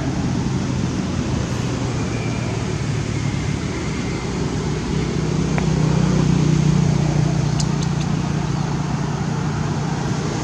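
Steady low motor hum, like a running engine or passing traffic, swelling a little about halfway through.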